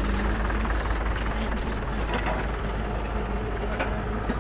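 Diesel engines of a Komatsu excavator and a tractor running steadily, with a few short knocks.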